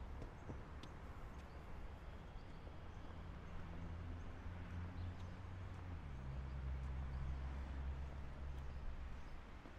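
City street ambience with a motor vehicle's engine running close by, a low hum that steps down in pitch about six seconds in and fades near the end.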